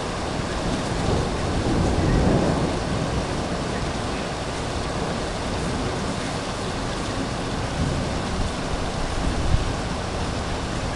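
Heavy rain pouring down steadily in a thunderstorm, with a low rumble of thunder swelling and fading about two seconds in. A single brief sharp knock near the end.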